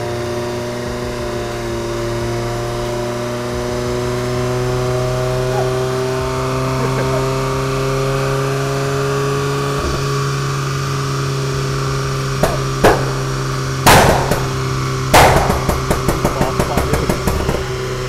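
Perodua Myvi's four-cylinder engine idling steadily on the dyno after a power run. From about 12 seconds in, sharp exhaust pops start, with a loud bang near 14 seconds and a rapid string of crackles and bangs around 15 to 17 seconds, from the pop-and-bang map in the new tune.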